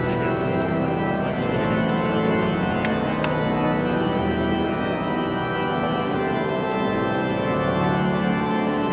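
Cathedral pipe organ playing sustained chords.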